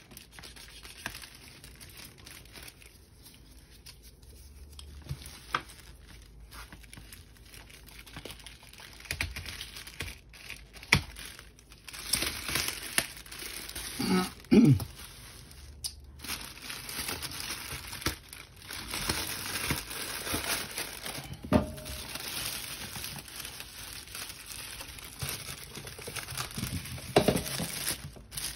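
A parcel being opened by hand: packaging crinkling and tearing in irregular bursts, with a few sharper handling noises.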